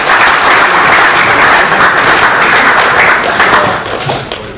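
Audience applauding, steady and loud, then dying away near the end.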